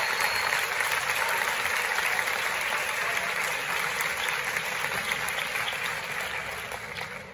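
Large audience applauding, a dense steady clapping that dies away in the last second or so.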